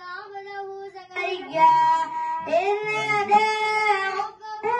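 A boy reciting the Quran in the melodic tilawat style, drawing out long held notes, with a short pause for breath about a second in and again near the end.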